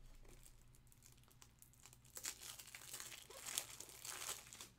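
Faint crinkling and rustling of trading cards and their plastic being handled, irregular and picking up about halfway through.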